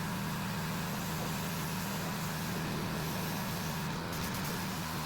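Gas-engine pressure washer running steadily, a constant engine hum.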